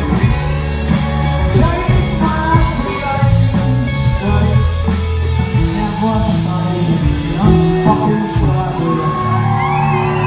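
Rock band playing live: electric guitars, bass and drums, with a male lead vocal sung into the microphone.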